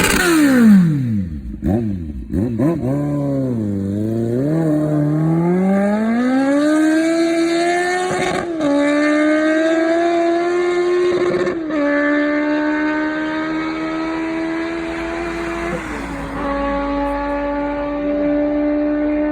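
Kawasaki Z750 motorcycle engine running through an Akrapovic exhaust. It opens with a few quick throttle blips that rise and fall. The revs then climb steadily and hold near one pitch, with three brief dips.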